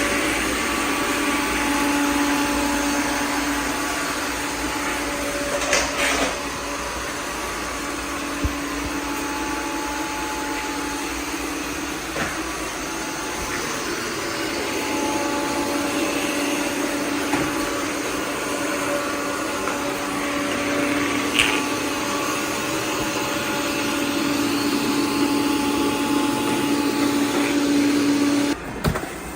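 iRobot Roomba Plus 405 robot vacuum-and-mop system running with a steady motor hum and whine, with a couple of brief clicks along the way. It cuts off shortly before the end.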